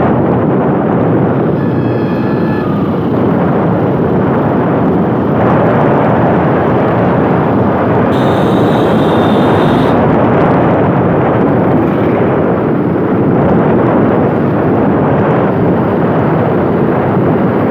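Wind rushing over the microphone of a camera riding along a road, with the vehicle's road noise underneath, a loud steady rumbling roar. A short high-pitched tone sounds in the middle.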